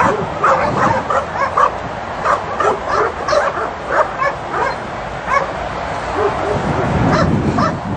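Dog yipping and whining over and over, several short high-pitched calls a second.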